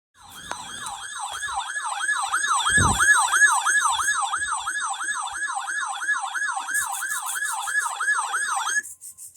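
Electronic siren in a fast up-and-down wail, about two and a half sweeps a second, with a brief low thump about three seconds in; it cuts off abruptly near the end.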